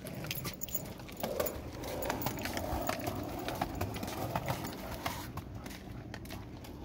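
A golden retriever walking on a concrete sidewalk, its claws clicking on the pavement, along with the walker's footsteps. A low rolling rumble runs under the clicks from about a second in until about five seconds in.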